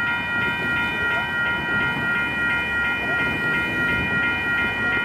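Several electronic railroad crossing bells ringing together, their strokes repeating about three times a second, over a low rumble.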